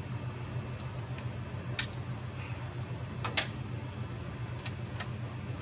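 A few sharp clicks and light taps of a Phillips screwdriver and plastic parts on an MEI bill validator's bezel as its screws are worked out, the loudest about three and a half seconds in. A steady low hum runs underneath.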